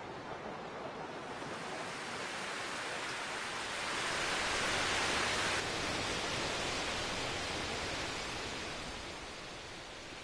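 Rushing noise with no tone in it that builds to its loudest about four seconds in. It drops suddenly a little past five and a half seconds, then slowly fades.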